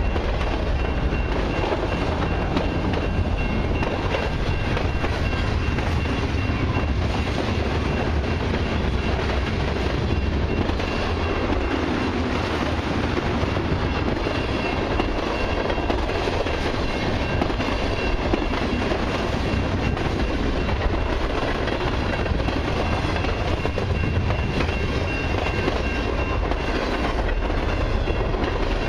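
Freight cars of a long mixed train (covered hoppers, autoracks and tank cars) rolling past, their steel wheels running on the rails with a steady, even rumble.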